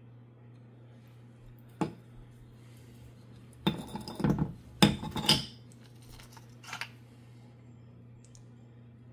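Cut slabs of chalcedony and jasper clacking and clinking against each other as they are handled: a single sharp click, then two bursts of clattering knocks around four and five seconds in, and a smaller one near seven seconds. A faint steady low hum runs underneath.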